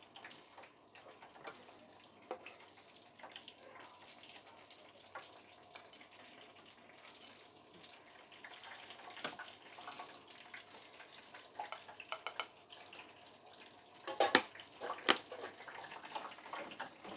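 Faint crackle of cooking oil with light clinks of a metal spatula against a wok and plate, and a few sharp knocks of utensils near the end.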